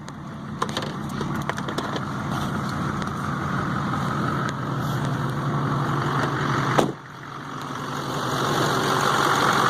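LBZ Duramax 6.6-litre turbodiesel V8 idling steadily, with a few small clicks and one sharp click about seven seconds in.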